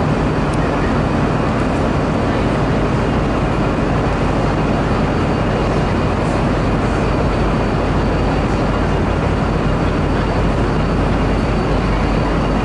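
Diesel train engines running steadily: a constant low hum with no breaks or changes.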